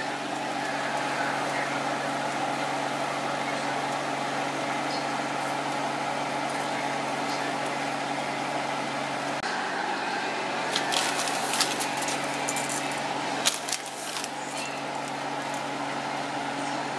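Pot of water at a rolling boil on the stove: a steady rushing hiss with a hum under it. A few sharp clicks come around 11 and 13 seconds in, as dry spaghetti knocks against the pot.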